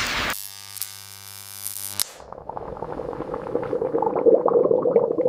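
A steady electric buzz for about two seconds that cuts off abruptly, then a dense crackling and fizzing that builds in loudness. These are the sounds of an electrolytic rust-removal rig being powered and working on corroded steel.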